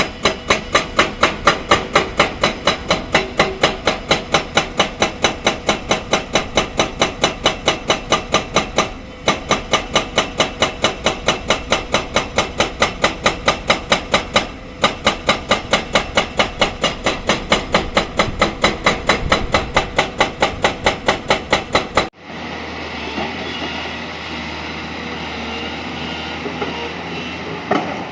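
Hydraulic rock breaker on an excavator hammering limestone in a rapid, even train of blows, breaking off briefly twice. About 22 seconds in it stops abruptly and a steady engine drone takes over.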